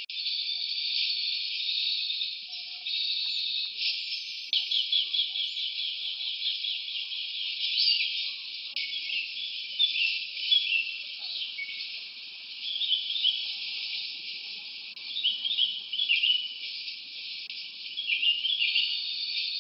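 Forest ambience: a continuous insect chorus with pulsing trills, and short repeated bird-like chirps and whistles over it.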